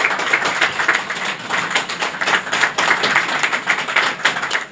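Crowd applauding: a dense, steady clatter of many hands clapping, greeting the mayor's official installation.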